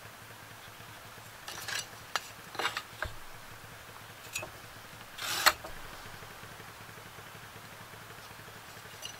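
Tape measure, metal speed square and pencil handled on wooden boards while marking a cut line: light taps, clicks and scrapes, the loudest a short rattle ending in a sharp click about five seconds in. A faint steady low hum runs underneath.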